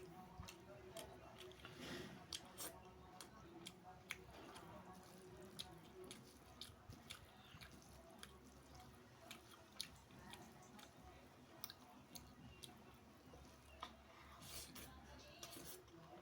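Faint close-up chewing of beef biryani, with many scattered small wet clicks.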